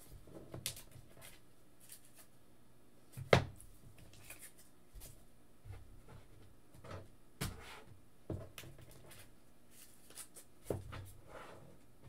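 Scattered knocks, taps and light clatter of things being handled and set down on a desk, with one sharper knock about three seconds in.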